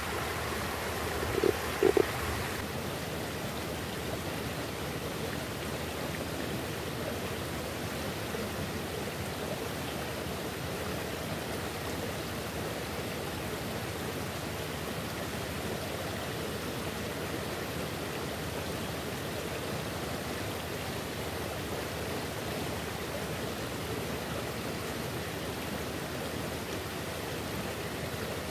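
Small stream running steadily over rocks, a continuous rush of water. Two brief knocks come about one and a half and two seconds in.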